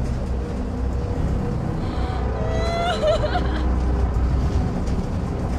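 Steady low rumble of aircraft engines and rushing air, with a short rising pitched tone, like a whistle, about halfway through.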